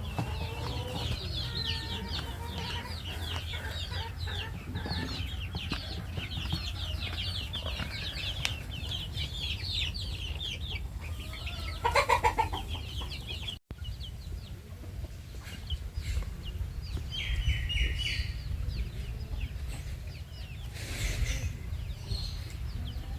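Flock of local chickens and young chicks chirping and clucking, with many quick high peeps over the first half and a louder squawk about twelve seconds in. The calls are sparser in the second half, over a steady low rumble.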